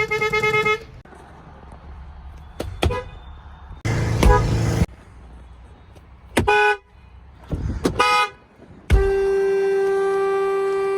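Pickup truck horns honking in turn, a different horn in each cut: several short honks, then one long steady blast from about nine seconds in. A brief rush of noise comes about four seconds in.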